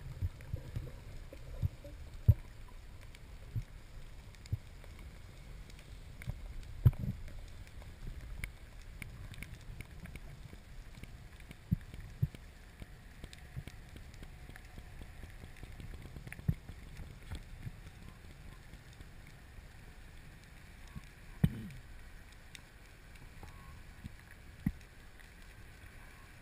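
Underwater sound picked up by a camera in a waterproof housing: a low, muffled rumble of moving water, with about a dozen sharp knocks and clicks scattered through it.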